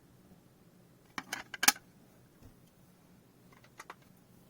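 Hard plastic graded-card slabs clicking and clacking together as they are handled: a quick cluster of sharp clicks a little over a second in, the loudest about halfway, and two faint ticks near the end.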